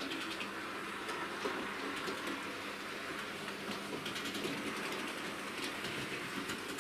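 Hornby OO gauge model A4 locomotives running round the layout's track: a steady whirr of the small motors and wheels on the rails, with light clicks coming through near the end.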